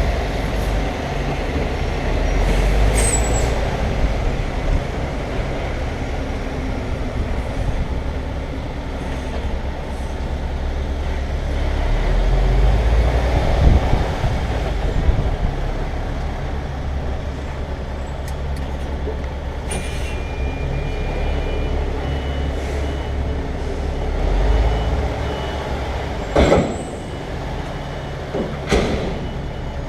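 Heavy goods lorry's diesel engine running at low speed, with a few short hisses of air from the brakes. About two-thirds of the way through, reversing beeps start and repeat.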